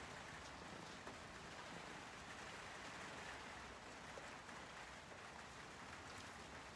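Faint, steady rain falling, an even hiss with a few light drip ticks.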